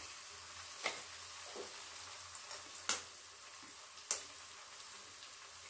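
Eggs frying in hot oil in an aluminium pan with onions and chillies, a steady sizzle, with three sharp clicks about one, three and four seconds in as eggs are cracked over the pan.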